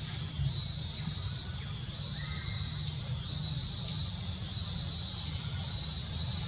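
Steady high-pitched drone of insects, with a low rumble underneath and a short faint chirp about two seconds in.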